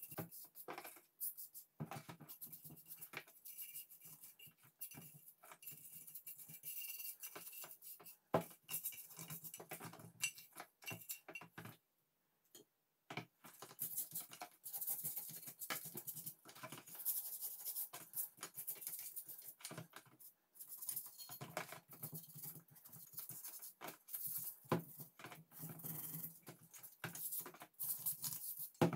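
A small stiff hand brush scrubbing rust off wet cast-iron iron parts in a tub of water: quick, irregular scratchy strokes in runs, with short pauses and one near-silent break a little before halfway.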